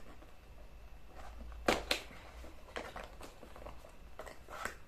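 Handling of a perfume box and its glass bottle: scattered light clicks and taps, with two sharper knocks close together a little under two seconds in.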